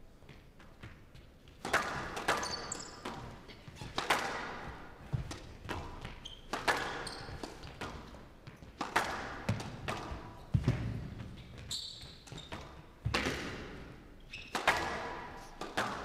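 Squash rally: the ball is struck by rackets and hits the court walls, giving a sharp crack every two seconds or so that rings on briefly in the hall. Players' court shoes squeak on the floor between shots.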